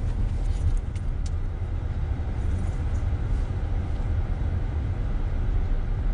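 Steady low rumble with a faint hiss over it, and a few light clicks in the first second or so.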